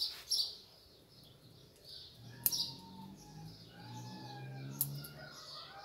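Small birds chirping in the background, with two sharp snips of pruning scissors cutting ficus bonsai twigs, about two and a half seconds in and again near five seconds.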